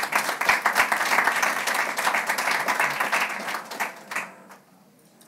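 Audience applauding, a dense patter of many hands clapping that dies away about four seconds in.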